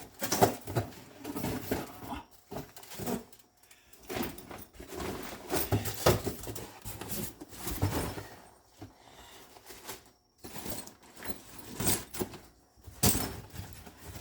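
Rummaging through workshop clutter in search of a rag: irregular clatter, knocks and rustling as objects are moved and handled.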